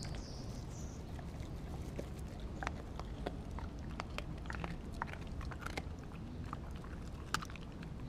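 A dog chewing a chunk of raw meat close to the microphone: irregular wet clicks and crunches of its teeth working the meat.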